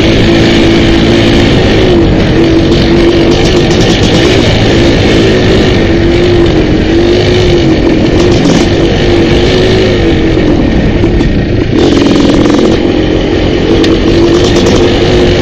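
Dirt bike engine running loud and close up while riding single track, its pitch rising and falling as the throttle is worked, with a brief dip about three-quarters of the way through.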